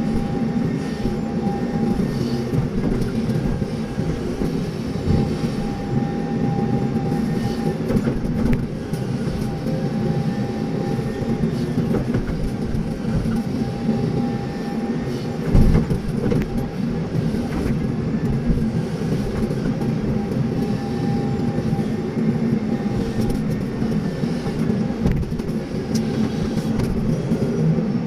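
Excavator engine running steadily under load while it works soil, with a faint whine that rises and falls. There is a single knock about halfway through.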